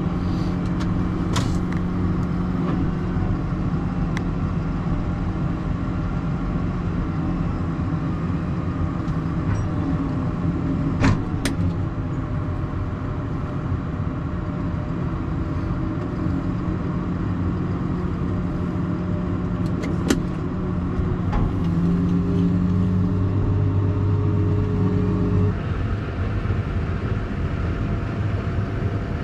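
Tractor engine running steadily under the load of the hydraulics tipping a trailer of sugar beets. Its note rises for a few seconds past the twenty-second mark and then settles back. Two or three sharp clicks come through, around the middle and again later.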